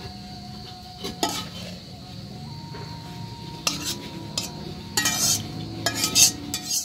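Metal slotted spatula scraping and knocking against a wok as a finished mushroom stir-fry is scooped out onto a plate. There are a few sharp scrapes over a steady low sizzle from the hot pan.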